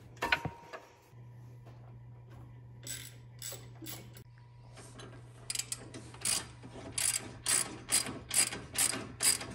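Hand ratchet wrench clicking as a bolt on a front coilover is turned: a few scattered clicks at first, then about halfway through a steady run of ratchet strokes, roughly three a second.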